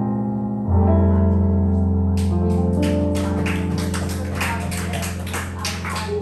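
A song ending on a long held keyboard chord, with scattered hand clapping from the audience starting about two seconds in.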